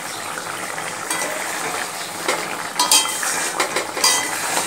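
A utensil clinking and scraping against a kadai as a simmering mustard-prawn gravy is stirred. Several sharp knocks come from about a second in and grow more frequent in the second half, over the bubbling of the gravy.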